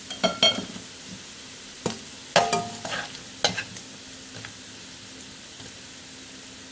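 Wire spider strainer clinking and scraping against a non-stick wok several times in the first few seconds as crisp-fried pork belly is scooped out of its rendered fat, over a steady low sizzle of the hot fat.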